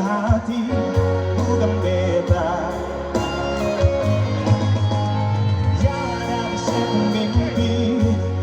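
A pop song played loud through a line-array PA system, with heavy pulsing bass, guitar and singing.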